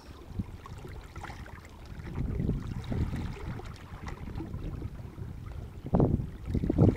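Wind buffeting the microphone, mixed with sea water washing over shallow rocks: an uneven low rumble that swells about two seconds in and surges twice near the end.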